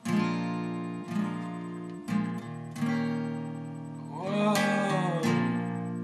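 Acoustic guitar strummed, one chord about every second, each left to ring. About four seconds in, a voice sings a long 'wooow' that rises and then falls.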